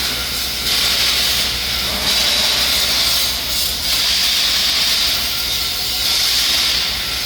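Loud, steady hissing noise over a low steady hum. The hiss swells and eases every second or so.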